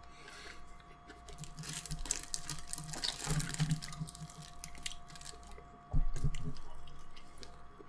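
Crispy fried chicken crackling as it is pulled apart by hand, with chewing. A dull thump about six seconds in.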